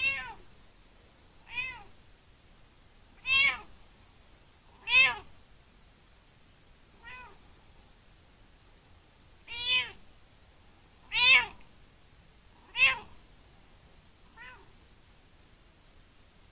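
Tabby cat meowing: nine short meows about every one and a half to two seconds, each rising then falling in pitch, some loud and some soft. The owner takes them as the cat asking to be played with.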